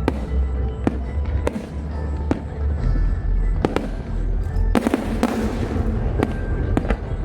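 Fireworks going off: sharp bangs about once a second, with a dense burst of crackling about five seconds in, over a steady low rumble.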